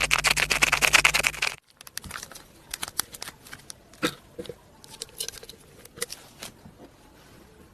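Thick shampoo slime being stirred and squished, making sticky wet clicks. A fast, dense run of clicks lasts about the first second and a half, then the clicks and pops come one at a time, every half second or so.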